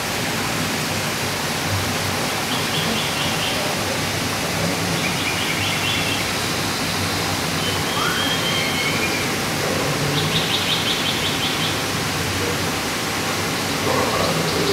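Steady rushing, water-like noise, with a few short runs of faint, fast, high chirps and one brief rising whistle about eight seconds in.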